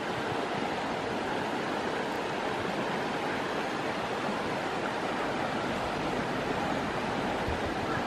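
Steady outdoor rushing noise, an even hiss with no distinct events.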